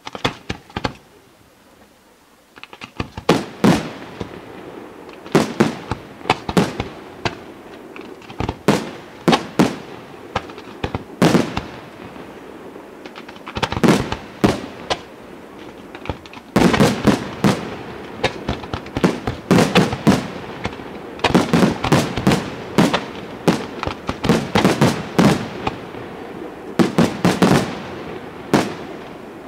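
Aerial fireworks shells bursting, a string of sharp bangs and crackles. A couple of reports open it, then a brief lull, then volleys that grow denser, with the busiest runs in the second half.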